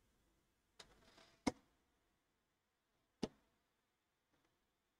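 A few isolated sharp clicks of a computer keyboard and mouse, three louder ones spaced about a second apart with a few fainter taps among them, over near silence.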